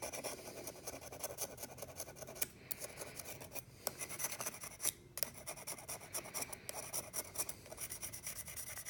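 Kitchen knife blade scraping tannin residue off the teeth of a hardened 440C stainless steel juicer cutter: quick, repeated metal-on-metal scrapes, with a few brief pauses.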